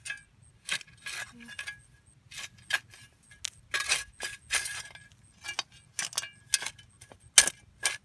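Metal shovel scraping and scooping loose soil: a run of short, irregular scrapes.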